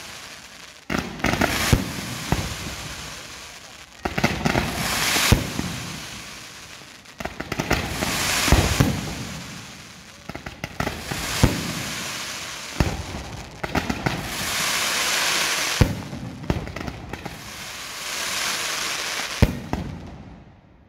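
Aerial fireworks display by Pirotecnia Crespo: shells launching and bursting in repeated sharp bangs, with stretches of hissing, crackling effects between them, dying down shortly before the end.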